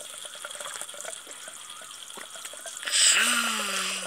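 A small child sipping water from a metal mug, with faint small slurping ticks, then about three seconds in a breathy voiced 'aah' lasting just over a second.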